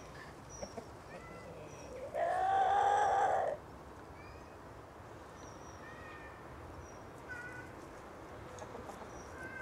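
A single drawn-out animal call lasting just over a second, rising then falling in pitch, about two seconds in, with faint short bird chirps scattered around it.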